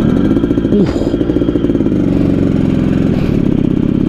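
Yamaha RX King's single-cylinder two-stroke engine running on the move, its pitch dipping briefly about a second in as the throttle eases, then pulling on steadily. It has a rough, snoring note that sounds scary, from an oversize bore, which tends to make the engine noisy.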